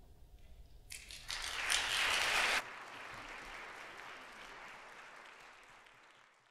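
Theatre audience applauding as the music ends. The clapping starts about a second in, drops suddenly in level before halfway, then fades out.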